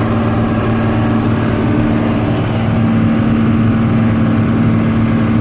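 Engine and drives of a combine harvesting rig running steadily under working load, a constant-pitch hum heard from inside the cab.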